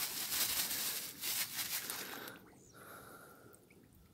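Bait and water pouring from a plastic bag into shallow pond water, splashing, for about two seconds before it stops abruptly. Then near quiet, with a faint short tone.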